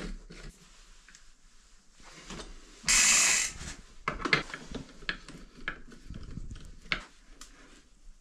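Scattered clicks and knocks of tools and bicycle parts being handled, with one loud burst of hiss lasting under a second about three seconds in.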